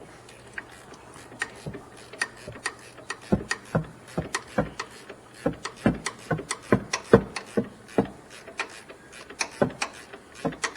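Hand ratchet clicking in short, irregular strokes, a few clicks a second, as self-locking nuts are wrenched down.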